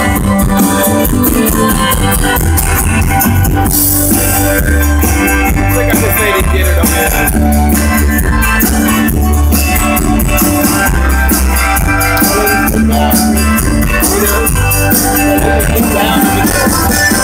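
Live Tex-Mex band playing an instrumental passage through the stage PA, with a heavy bass line and a steady drum and shaker beat.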